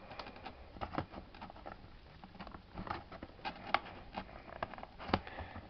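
Heroclix booster pack being worked at by hand, its packaging crinkling and clicking in irregular short snaps, a few of them sharper, as it resists being opened.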